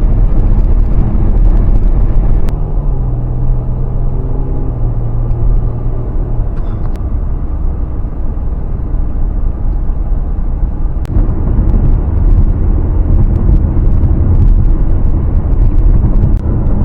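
Car cabin noise while driving: a steady low rumble of road and engine, with a few faint clicks.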